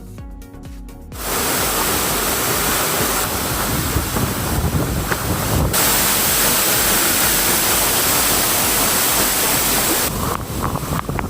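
Background music for about the first second, then a loud, steady rush of falling water from a waterfall close by, which eases in its upper hiss near the end.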